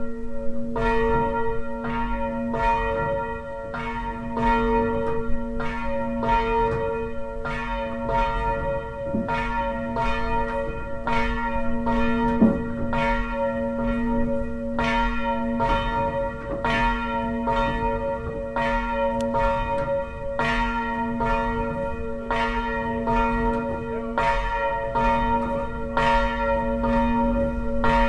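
Hand-rung church bell swung by rope, its clapper striking at a steady, even pace a little more than once a second, with the bell's hum and partials ringing on between strokes. The even strikes are the sign that the bell has been swung up to full height and the ringer is holding the rhythm.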